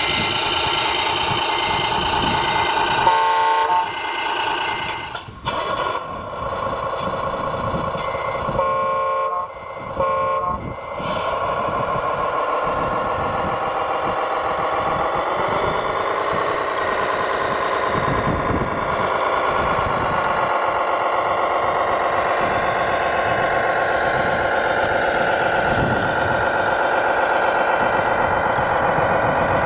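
Electronic sound unit of a Tamiya Globe Liner RC truck. It plays reversing beeps at first, then a few horn toots about three seconds in and again around nine seconds in. After that comes a simulated diesel engine that revs up near the middle and runs on steadily.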